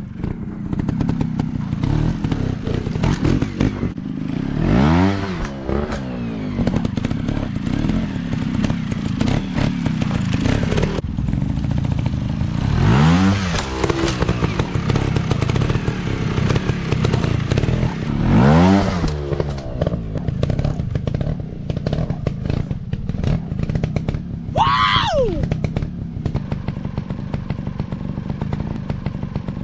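Trail motorcycle engines running, revved up and dropping back about four times; the last rev, a few seconds before the end, is higher and sharper than the others.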